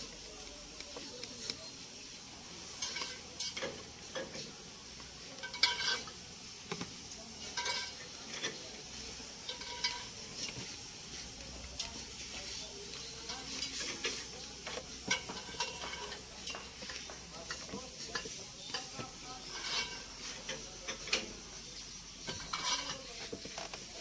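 Irregular small metallic clicks and taps over a steady hiss as oil is applied to a dump truck's door hinges.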